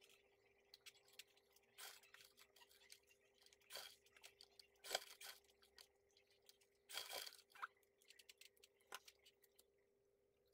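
Irregular rustling and crinkling of a fabric piece with stiff interfacing being handled, with louder rustles about five and seven seconds in, over a faint steady hum.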